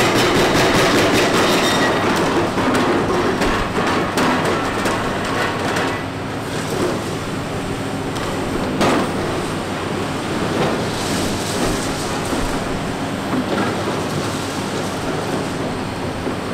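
Hitachi Zaxis 490 excavator breaking up a concrete tunnel structure: the machine runs under a fast rattling hammering for the first two seconds, then irregular knocking and grinding of broken concrete, with one sharp strike about halfway through.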